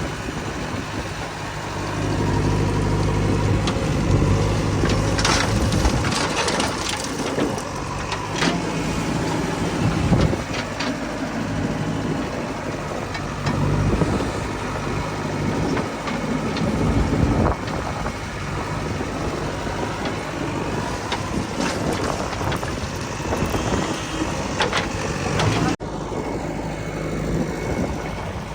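Heavy diesel machinery engine running, its pitch shifting up and down with load, with scattered knocks and clatters over it.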